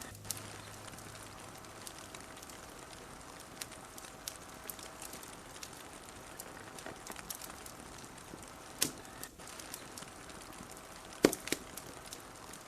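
Wood fire crackling: irregular small pops and snaps over a soft steady hiss, with a louder pop about nine seconds in and the loudest snap about eleven seconds in.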